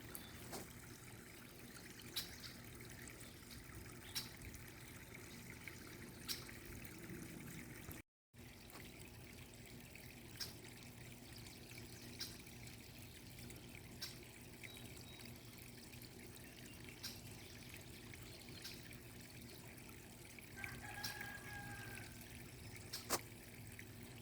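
Faint, steady trickle of running water with scattered sharp drips and ticks, broken by a short dropout to silence about a third of the way in.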